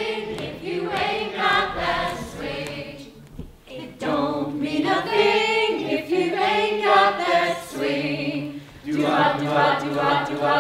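Adult choir of mixed men's and women's voices singing together in rehearsal. The singing comes in sustained phrases, with short breaks about three and a half seconds in and again near nine seconds.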